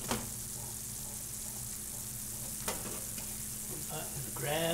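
Butter-cream sauce with pollock roe sizzling in a nonstick frying pan, a steady hiss, with two light clicks. A brief voice-like sound near the end.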